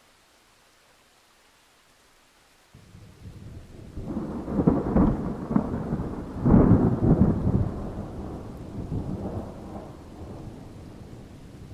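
A roll of thunder. It breaks in suddenly about three seconds in, swells to two loud crashes, then rumbles away slowly.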